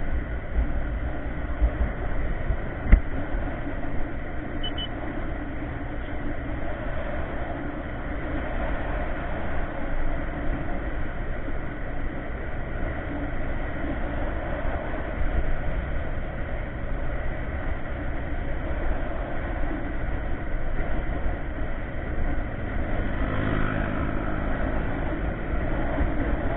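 Yamaha Mio MX125 scooter ridden at speed on an open road: a steady engine drone mixed with rushing wind noise, with one short click about three seconds in.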